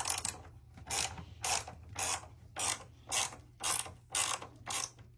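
Hand ratchet worked back and forth in short, even strokes, about ten of them, a little under two a second, during reassembly of the mini split.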